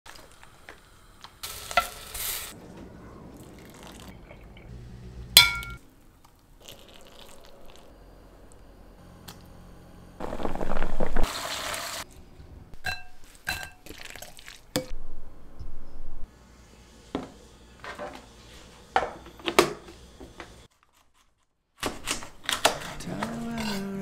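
A run of kitchen prep sounds: clinks and taps of chopsticks and utensils against glass and metal dishes, and scattered knocks. About ten seconds in comes a louder two-second rush of noise, and near twenty-one seconds the sound cuts briefly to silence.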